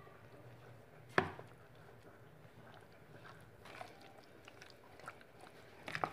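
Wet squelching of raw chicken pieces being worked by a gloved hand through a thick yogurt and cornstarch marinade in a plastic tub. A single sharp knock about a second in is the loudest sound.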